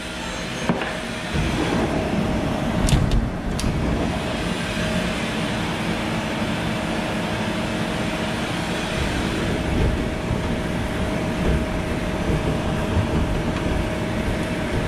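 Machinery of a CNC vertical machining centre running: a steady mechanical hum with a constant tone sets in about a second and a half in. A few sharp clicks come near three seconds.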